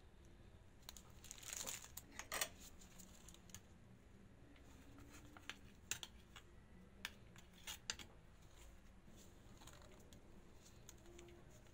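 Near silence with faint handling noises: a short crinkling rustle about two seconds in, then a few light clicks and taps.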